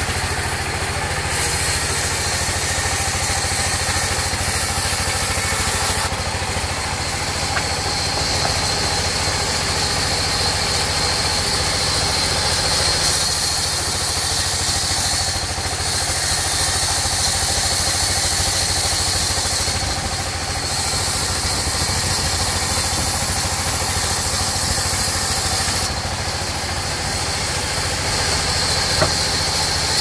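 Sawmill log saw and its drive engine running steadily while the blade cuts lengthwise through a mahogany log. The engine drones low under a high hiss from the cut, and the hiss grows and fades several times as the log is fed.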